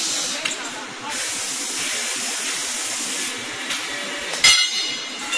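Han Jie HC-380LR CNC tube bending machine working through a bend cycle, with a steady hiss. About four and a half seconds in comes one loud, sharp clack with a burst of hiss.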